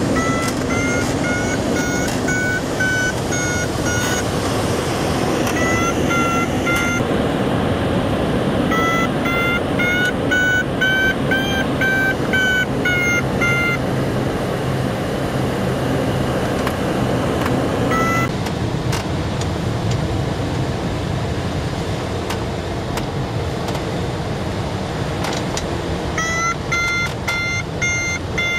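Glider variometer beeping in runs of short, evenly spaced tones over steady rushing wind from the airflow; the beeps signal rising air, their pitch climbing slightly during the long run around the middle. The beeping stops for several seconds in the second half, apart from one beep, and starts again near the end.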